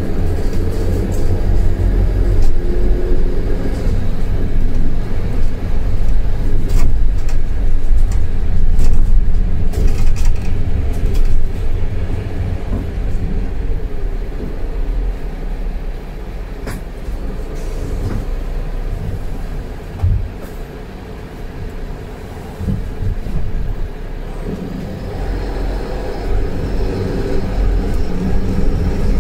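Mercedes-Benz Citaro C2 LE city bus heard from inside the cabin, its engine and drivetrain rumbling as it drives. The sound eases off in the middle as the bus slows. Near the end it pulls away again, the engine note rising as it accelerates.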